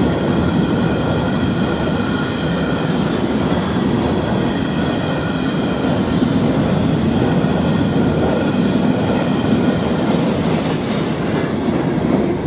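Freight cars of a CSX mixed manifest train rolling past at speed: a loud, steady rumble and clatter of steel wheels on the rails, with faint steady high-pitched tones over it.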